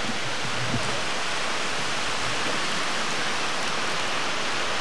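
Steady hiss of heavy hurricane rain pouring onto wet pavement.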